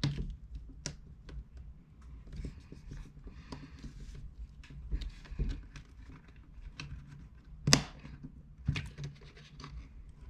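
Scattered light clicks, taps and scraping as small parts and tools are handled while an iPad mini 2 is reassembled and its metal heat shield plate is fitted back in, with one sharper click about three-quarters of the way through.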